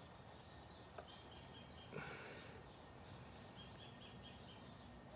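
Near silence: quiet room tone with faint hand-handling noise as a circlip is pressed onto a chainsaw's clutch sprocket. There is one small click about a second in and a brief faint rustle around two seconds.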